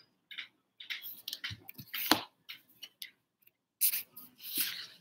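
Quiet, scattered clicks and short hissing rustles from someone handling a computer close to its microphone.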